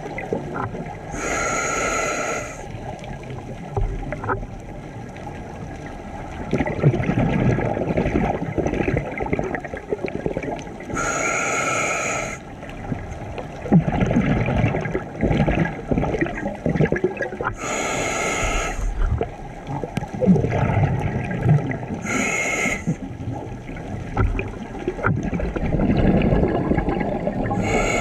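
Scuba diver breathing through a regulator: five hissing inhalations about five to six seconds apart, with bubbly rumbling exhalations between them.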